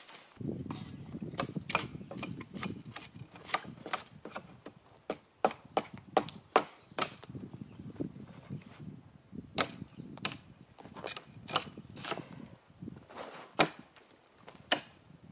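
Irregular sharp wooden knocks and cracks, one or two a second, over a low background noise.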